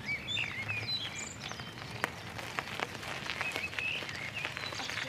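Small birds chirping and singing in quick, short, rising and falling calls, over a low steady rumble with scattered light clicks.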